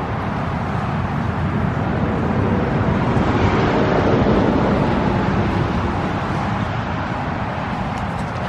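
Steady road-traffic noise from a nearby interstate, swelling as a vehicle passes about four seconds in.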